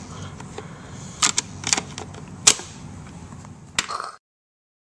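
A handful of sharp, short clicks or knocks over low room noise, the loudest about halfway through. Near the end the sound cuts off abruptly into silence.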